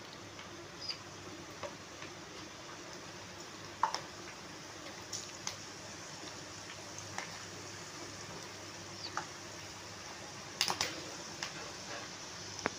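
Hot oil sizzling steadily around chana dal dough rings as they deep-fry in a pan, with scattered small pops and crackles and a louder cluster of crackles near the end.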